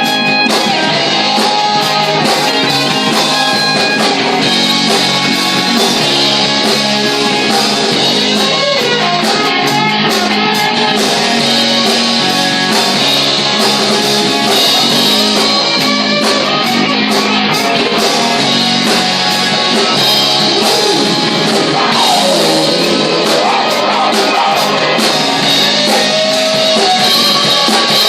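Live rock cover band playing loud, guitar-led rock with a drum kit.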